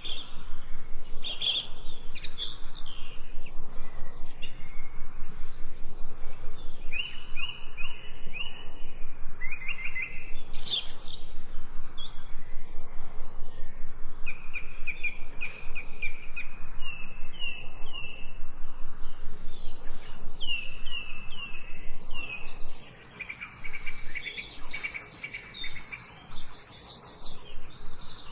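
Several forest birds singing and chirping at once, with overlapping calls that include runs of quick repeated whistled notes, some stepping downward.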